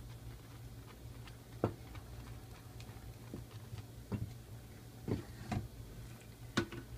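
Wooden spoon stirring a thickened coconut pudding mixture in a metal pot, knocking against the pot in about six short, irregular clicks over a steady low hum.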